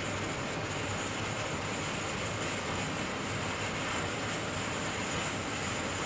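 BRS12A multi-fuel stove burning with its valve part-open, a steady rushing flame noise. The generator tube is not yet hot enough to vaporise the fuel, so the fuel burns as a tall yellow flare rather than a clean burner flame.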